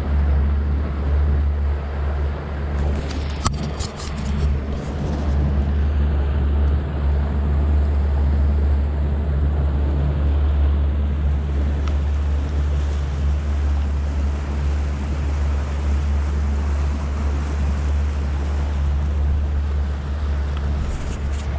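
Fishing boat running at speed on its outboard motor: a steady low rumble of wind buffeting the microphone over the engine and the rush of water along the hull. A few short clicks about three to four seconds in.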